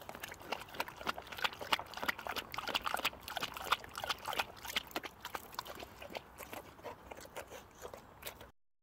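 Boxer dog lapping and slurping water from a plastic bottle held to its mouth: a rapid, irregular run of wet licks and smacks that cuts off suddenly near the end.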